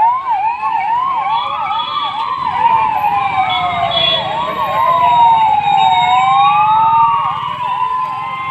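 Several police vehicle sirens sounding at once, slow rising-and-falling wails overlapping a fast warbling yelp, over the low rumble of vehicle engines.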